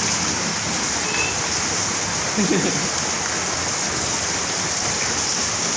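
Heavy rain pouring down steadily, with a brief voice heard about two and a half seconds in.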